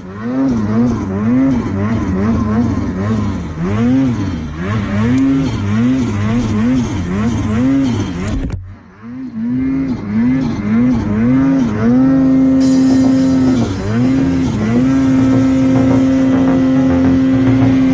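Snowmobile engine being blipped on and off the throttle in quick, repeated rev swells, about one or two a second, while working through deep powder. About halfway through it drops off sharply for a moment, then picks up again and settles into a steady held rev near the end.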